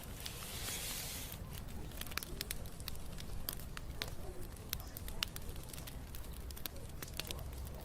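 Wood fire crackling: sharp pops and snaps at irregular intervals over a low steady rumble, with a short hiss near the start.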